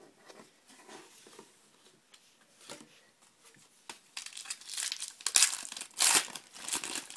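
Foil wrapper of a 2011 Panini Prestige football card pack crinkling and tearing open, in a run of loud, rustling strokes starting about four seconds in, after a quieter stretch with a few soft clicks.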